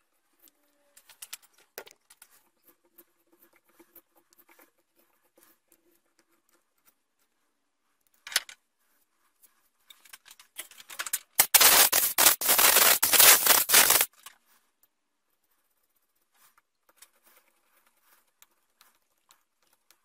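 Hand tools and metal parts being handled while an end plate is fitted to a treadmill motor: light clicks and taps, then a loud harsh rasping noise about eleven seconds in that lasts about two and a half seconds and stops abruptly.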